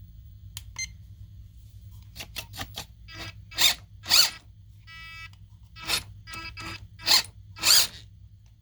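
Pop-up headlight mechanism of a 1/18-scale RC drift car clicking in clusters, getting louder after about three seconds, with a short electronic beep about five seconds in. The owner thinks something in the mechanism broke or came loose after the headlights were opened by hand.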